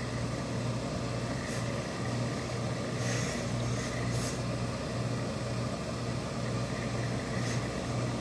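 Steady low machine hum with several short hisses of steam from a hose-fed tailor's steam iron pressing trouser lining.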